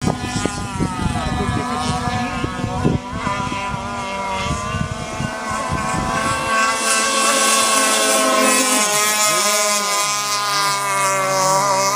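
Two radio-controlled model speedboats running at speed, their high engine whines overlapping and wavering in pitch, dipping and rising as the boats turn and pass. A gusty low rumble on the microphone during the first half.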